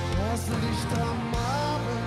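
Music: a gliding melody line over a steady low bass.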